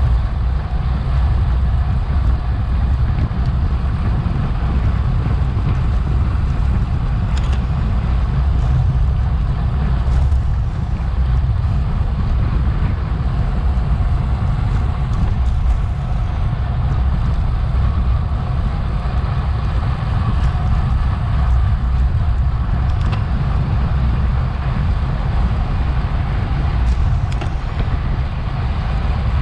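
Wind rushing over the microphone of a bike-mounted action camera at racing speed: a loud, steady low rumble, with a few faint clicks.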